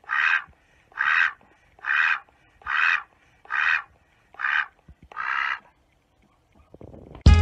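Domestic white duck quacking: seven loud quacks in an even rhythm, a little under one a second, stopping about six seconds in. A burst of drum-led music starts right at the end.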